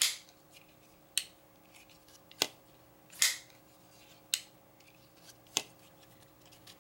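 Cold Steel Recon 1 tanto folding knife being worked open and shut over and over: six sharp metallic clicks about a second apart as the blade snaps into and out of its Tri-Ad lock.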